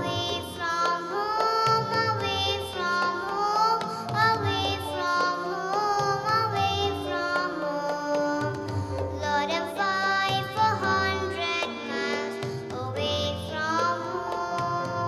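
A young girl singing into a microphone over musical accompaniment with a steady low beat.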